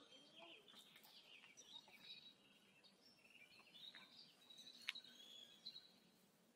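Faint, short, high-pitched chirping calls, some gliding in pitch, with a few sharp clicks; the loudest click comes about five seconds in.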